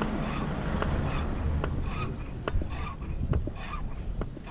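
Mountain e-bike being wheeled along pavement by someone walking beside it: a soft regular stepping pulse about twice a second, sharp light clicks from the bike, and rubbing handling noise.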